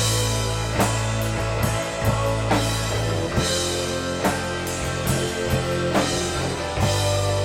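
Rock band playing at a jam: a drum kit keeps a steady beat under guitar and sustained bass notes.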